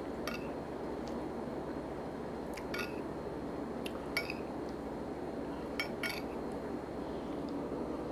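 A metal utensil clinking lightly against a dish while eating: about seven short, ringing clinks spread unevenly, some in quick pairs, over a steady background hiss.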